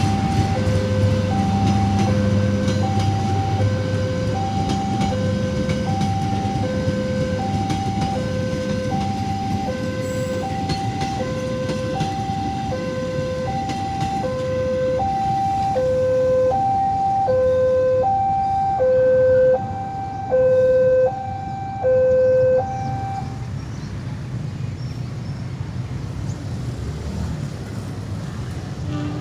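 Electronic two-tone warning alarm of a railway level crossing, alternating between a low and a high note about every three-quarters of a second, growing louder before it stops about 23 seconds in. A low rumble runs underneath.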